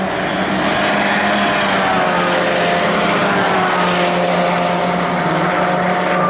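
Chevrolet Cruze cup race cars running on the circuit, several engine notes gliding up and down over one another, over a steady low hum.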